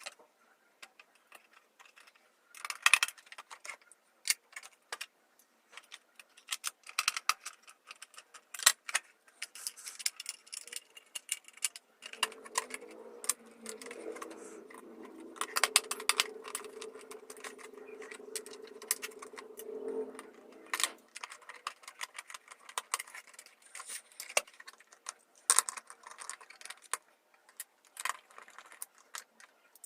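Irregular clicks and rattles of a battery wall clock's plastic parts being handled and fitted back together, with a steady low hum for several seconds in the middle.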